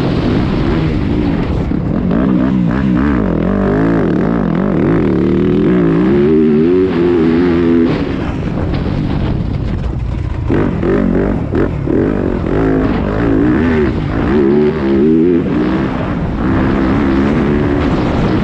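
2021 Yamaha YZ250F motocross bike's four-stroke single-cylinder engine under hard riding on a dirt track, its note rising and falling over and over as the rider opens and closes the throttle and shifts, heard close up from on board.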